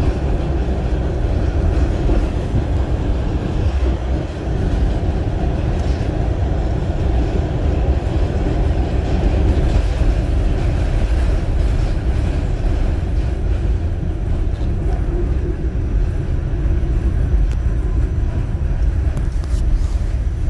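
New York City subway car running at speed on elevated track, heard from inside the car: a steady rumble of wheels on rails and running gear.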